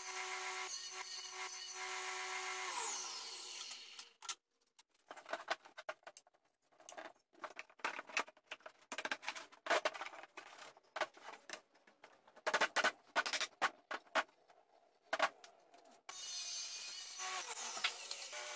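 Table saw running, its tone sliding down as it winds down about three seconds in. Then a long run of irregular wooden knocks and clatter as box-jointed spotted gum panels are handled and tapped together in a dry fit, before the table saw starts running again suddenly near the end.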